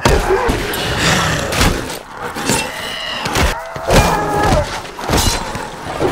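Fantasy film battle sound effects: a dense run of heavy thuds and crashes, with a couple of short high wailing tones around the middle.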